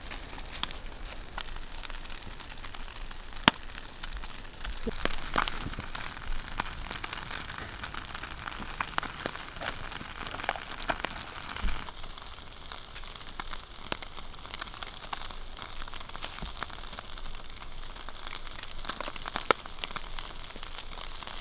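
Whole greenling sizzling on a grill over hot campfire coals, with the fire crackling and giving sharp pops, the loudest about three and a half seconds in and again near the end.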